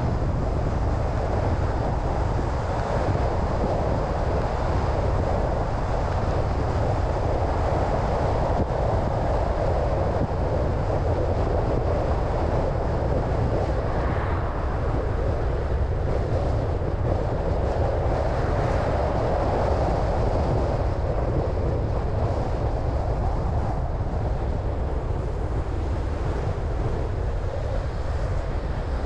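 Steady road and wind noise of a car driving, an even low noise with a hiss on top and no sudden changes.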